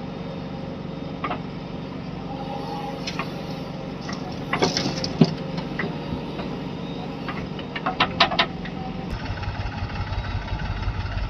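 Heavy diesel engine running steadily, with a few sharp metallic clanks midway and again later. About nine seconds in, the engine's low rumble grows heavier.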